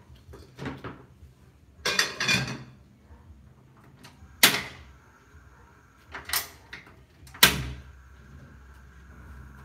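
Aluminium pot lid set onto the pot with a brief clatter about two seconds in, then a few sharp clicks as the gas stove's control knob is turned to light the burner.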